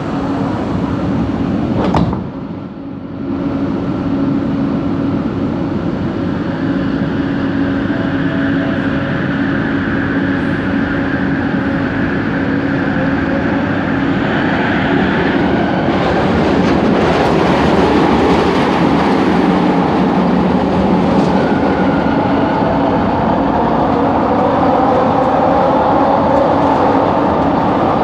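Inside a moving metro train car: steady running noise with a humming traction-motor tone and a higher whine that comes and goes. This is the weird motor noise coming from coach 4 of Set 70. A sharp click about two seconds in; the running noise grows louder and rougher about halfway through.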